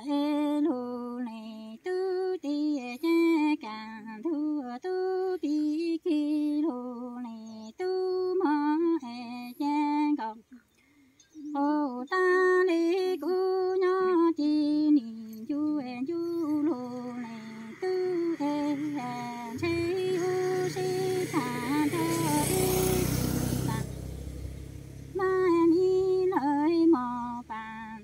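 A woman chanting a sung verse in phrases, the melody wavering and stepping between a few notes, with a pause for breath about ten seconds in. A rush of noise swells over the second half and drops away a few seconds before the end.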